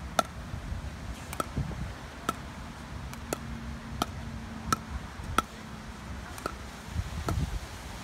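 Pickleball dink rally: paddles striking a plastic pickleball back and forth, with the ball bouncing on the court, giving a steady series of sharp pops, about one a second.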